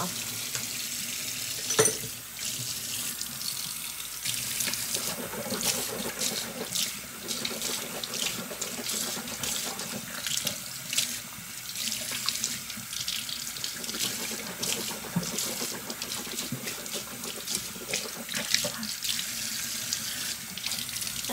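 Bathroom tap running steadily into a sink while someone rinses at it, with a sharp knock about two seconds in.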